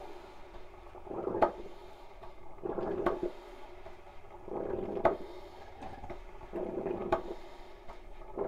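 Old Farberware electric coffee percolator perking hard, which the owner calls a very aggressive percolation. A gurgling surge of boiling water comes about every two seconds, each ending in a sharp pop, four times.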